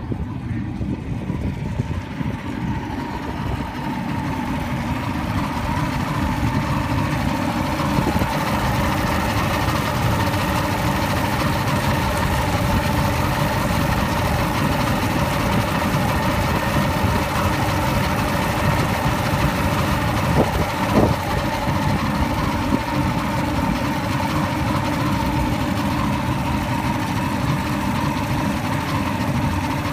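Evinrude outboard motor running steadily at a fast idle of about 1400 rpm, held up by the quick-start. It gets a little louder over the first several seconds, then holds steady.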